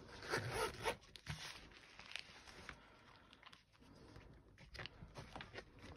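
Faint paper rustling and handling noises as a thin-paper Hobonichi Weeks planner is picked up and its pages leafed through: a cluster of rustles in the first second, then scattered soft clicks and rustles.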